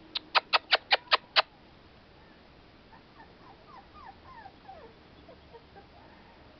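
A quick run of seven sharp clicks in the first second and a half, then young American Pit Bull Terrier puppies giving faint, short, falling whimpers and squeaks.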